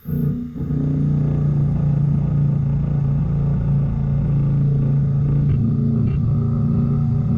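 A machine running with a steady, loud droning hum that starts suddenly.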